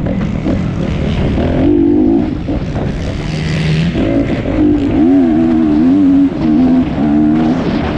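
Honda CRF230 dirt bike's single-cylinder four-stroke engine revving up and down repeatedly as the throttle is opened and closed around a motocross track. It is lower for a moment in the middle, then rises and falls quickly several times.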